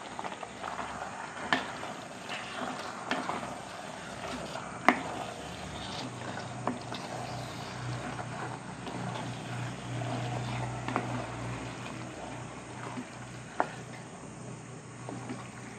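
A ladle stirring raw chicken pieces into thick, wet masala in a metal pot: wet squelching and scraping, with several sharp clinks of the utensil against the pot. A low steady hum joins about six seconds in.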